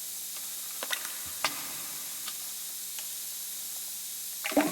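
Steady background hiss with a few scattered sharp light clicks and taps, then a louder cluster of knocks near the end.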